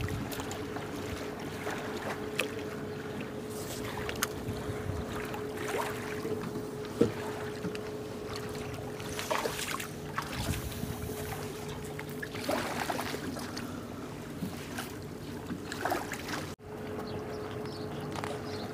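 Small boat's outboard motor running with a steady hum, with a few sharp knocks on the hull or gear, the sharpest about seven seconds in.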